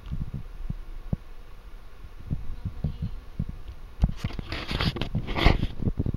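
Handling noise from a handheld camera: irregular low thumps and bumps. About four seconds in, a louder stretch of scratchy rustling starts and lasts about a second and a half.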